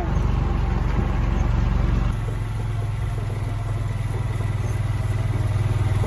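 Engine of an open side-by-side utility vehicle running steadily as it drives slowly, a low even hum that drops a little in level about two seconds in.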